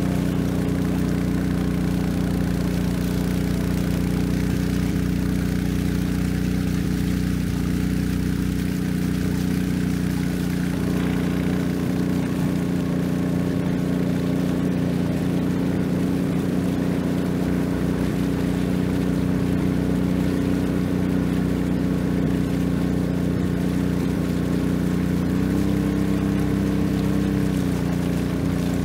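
Long-tail boat engine running steadily, with water rushing along the hull. Near the end the engine note rises for a couple of seconds, then drops back.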